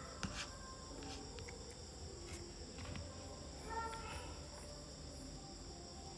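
Faint background with a steady high-pitched whine at two pitches and a few soft clicks.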